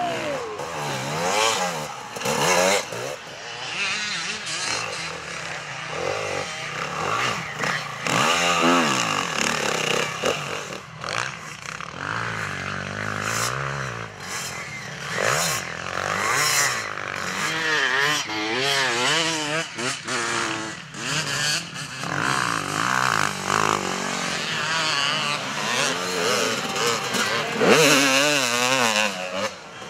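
Enduro dirt bike engines revving hard, the pitch rising and falling again and again as the bikes are throttled through deep sand, with one bike after another.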